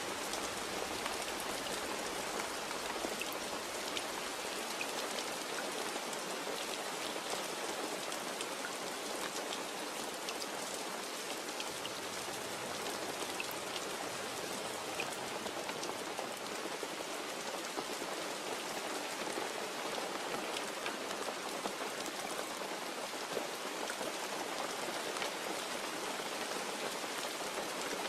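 Steady rain falling on a surface, an even hiss with many scattered drop ticks and no thunder.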